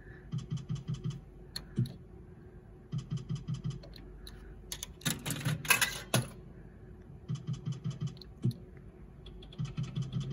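Zeus Glory video slot machine's reel sound effects: four short runs of rapid, evenly spaced ticks as the reels spin and land one after another. A louder, rasping burst comes about five seconds in.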